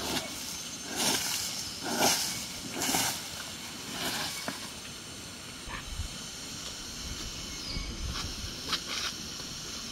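Broom sweeping sandy ground, a scratchy swish about once a second for the first four seconds or so. After that the strokes stop, leaving a low rumble and a few light rustles.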